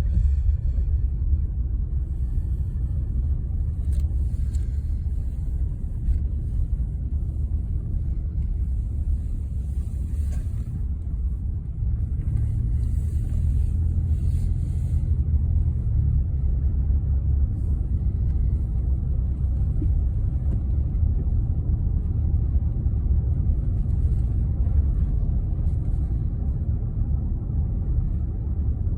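Steady low road and engine rumble inside the cabin of a moving 2021 Ford Expedition, with a faint hiss that comes and goes. No seat belt chime sounds: it has been disabled.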